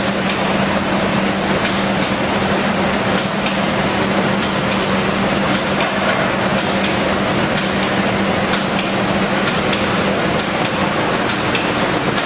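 Automatic spray-painting line running: steady hiss of the spray guns over the conveyor with machinery noise, and a steady hum that stops about ten seconds in.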